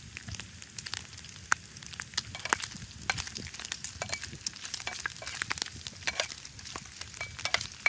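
Pieces of pork frying in hot oil in a frying pan, sizzling steadily with many irregular sharp pops and crackles of spattering fat.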